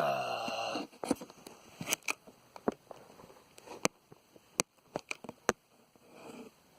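Handling of a plastic-wrapped cardboard trading-card box: scattered sharp clicks and taps, after a short pitched sound at the very start.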